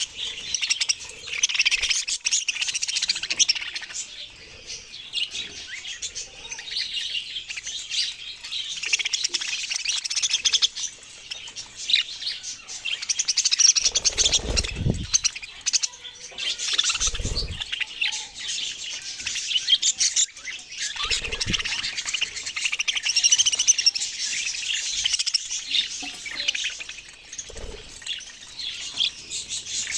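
A group of budgerigars (pet parakeets) chirping and chattering continuously in a dense, overlapping twitter. A few dull low thumps come through around the middle and again later.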